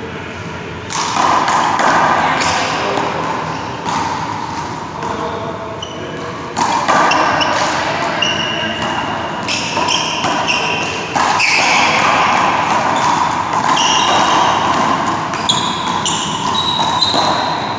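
One-wall handball singles rally in an echoing indoor hall: the small rubber ball slapping off hands and the wall, and sneakers squeaking on the court floor, with voices in the background.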